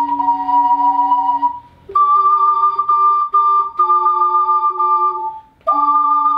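Two ocarinas played together in harmony: clear, pure held notes that move to a new chord after a short break about a second and a half in, with changing notes, then a brief break near the end before the playing resumes.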